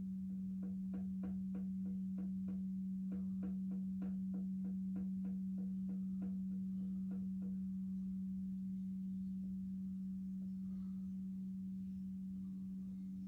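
Quartz crystal singing bowl sounding one steady low tone throughout, with quick light taps about three a second that fade out after about eight seconds. A second, higher bowl tone joins near the end.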